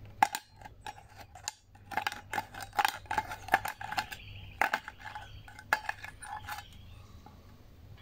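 Can-opener blade of a 1950s Coricama Italian army pocket knife levering its way around the side of a steel tin can, cutting it crosswise: a run of sharp metallic clicks and scrapes that stops about six and a half seconds in.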